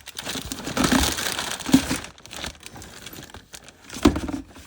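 Hands rummaging through a container of objects: irregular rustling and crinkling with a few sharp knocks, the loudest just under two seconds in and near the end.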